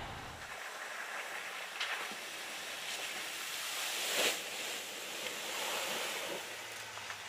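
Water splashing and sloshing as a Ram pickup truck drives through a shallow stream, with a big splash about four seconds in.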